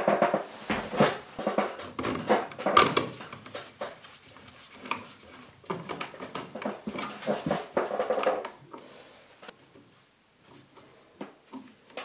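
Stiff electrical wires folding and a duplex receptacle pushed into a plastic old-work box, with irregular creaks, clicks and rustles that thin out to a few clicks over the last few seconds.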